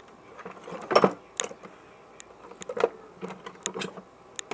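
Metal hand tools, pliers among them, clicking and clinking against each other and the workbench as they are picked through: a scattered string of sharp, irregular knocks.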